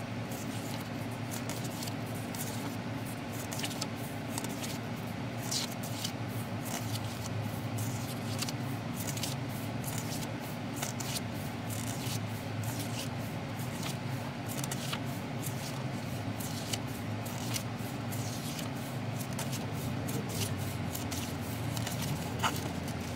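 Pages of a glossy album photobook being turned by hand: a running series of short papery flicks and rubs, over a steady low background hum.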